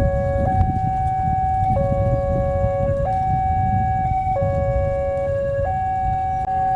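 Two railway level-crossing warning alarms sounding at once, each a steady electronic two-note tone switching between high and low notes about every second and a half, the two patterns overlapping out of step. A low rumble runs underneath.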